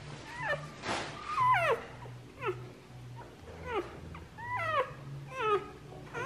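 Newborn Cane Corso puppies squealing, a quick string of short high cries, each falling in pitch.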